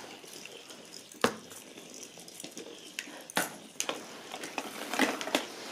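Battery-powered Weazel Ball toy switched on and rolling across carpet, its plastic ball giving a few sharp, irregular clicks and knocks as it tumbles with the furry weasel attached.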